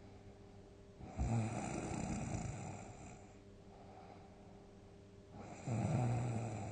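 A sleeping person snoring loudly: two long, low, rattling snores about four seconds apart, the first about a second in and the second near the end, with quieter breathing between them.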